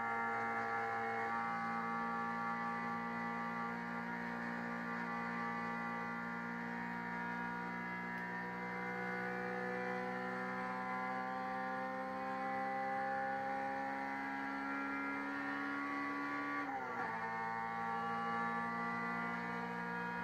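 Race car engine heard from inside the cabin, running at high revs with a steady droning tone that climbs slowly as the car gathers speed, then drops sharply near the end.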